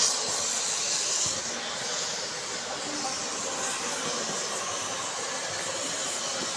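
Steady hissing noise with no clear rhythm or pitch, a little brighter in the first second and a half.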